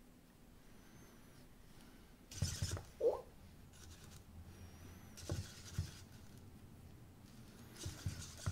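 Rustling and scraping of a soft fabric costume being handled and pulled onto a small EMO robot, in a few short bursts with light bumps starting about two seconds in. A short squeak about three seconds in.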